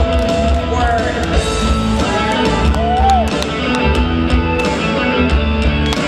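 Live rock band playing, with electric guitars over a steady beat.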